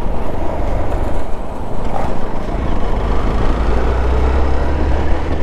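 Motorcycle engine running under way on the open road, with wind rushing and buffeting over the rider's microphone; the engine note rises slightly in the second half.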